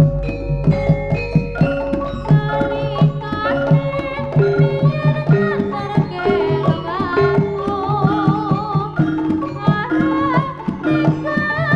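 Live Javanese jaranan gamelan music: hand drums play quick, dense strokes under ringing metallophone notes. A wavering, held melody line rises over them in the middle stretch.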